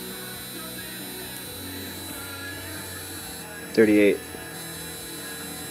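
Steady electrical hum with several constant tones from the running coil-and-amplifier circuit.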